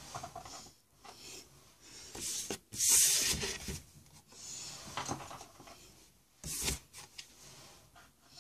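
Things being handled and moved about on a desk, with uneven rubbing and rustling. There is a louder rustle about three seconds in and a short knock-like burst near the end.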